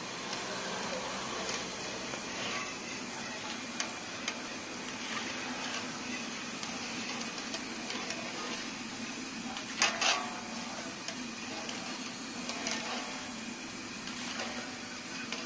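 Tapioca chips deep-frying in a large iron kadai of oil: a steady sizzle, with a metal skimmer scraping and clicking against the pan now and then and one loud ringing clink about ten seconds in.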